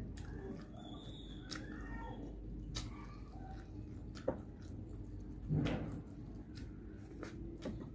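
Close-up eating sounds: fingers working rice and fried fish on a metal plate, with chewing and many small clicks and smacks. A sharp click comes about four seconds in, and a louder, longer sound follows about a second later.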